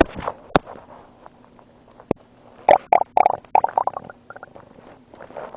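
Human stomach gurgling with water inside: a quick run of irregular short gurgles and pops, busiest in a cluster in the middle.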